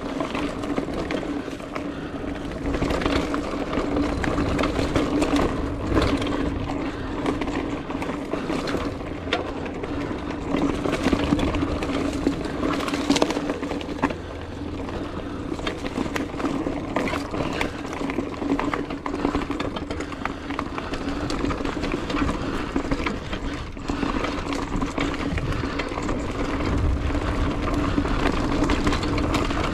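Hardtail mountain bike riding fast down a leaf-covered dirt singletrack: tyres rolling and crunching over dirt and leaves with a steady hum, and the bike knocking and rattling over bumps, heard through a chest-mounted GoPro.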